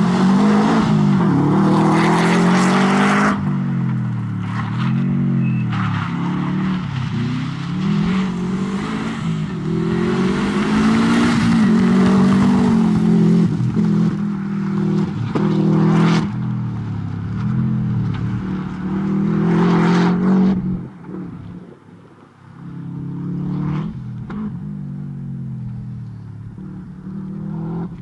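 Subaru Impreza rally car's flat-four engine being driven hard, its pitch climbing and dropping again and again as the driver accelerates, lifts and shifts through the course. About three-quarters of the way in it dips away almost to nothing, then comes back fainter.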